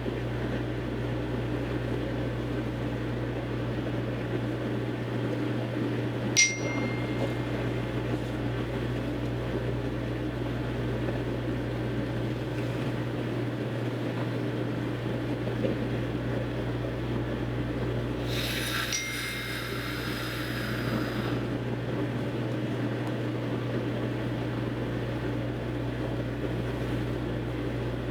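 Steady low electrical-sounding hum of room background noise. About six seconds in there is a single sharp click that rings briefly, and a soft hiss or rustle around nineteen seconds.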